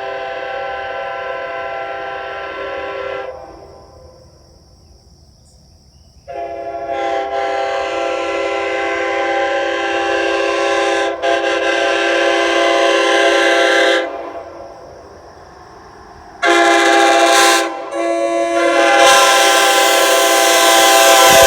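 A 2021 Nathan Airchime K5H five-chime locomotive air horn is being blown, its bells sounding together as one steady chord. It gives a series of blasts: one that stops about three seconds in, a long blast of about eight seconds, then short blasts near the end that run into a continuing one.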